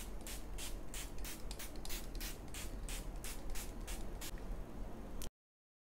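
Pump-action setting spray bottle being spritzed at the face over and over: short hissing sprays, about three a second. After a brief pause near the end comes one last spritz, and then the sound cuts out abruptly.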